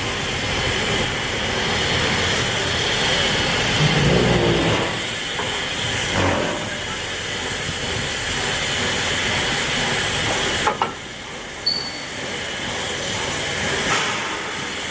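Peppercorn A1 Pacific steam locomotive 60163 Tornado standing and hissing steam steadily, with some voices in the background.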